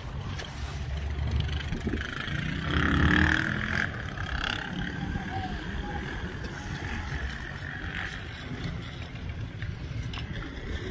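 Wind rumbling on the microphone, with a road vehicle passing that swells loudest between about two and a half and four seconds in.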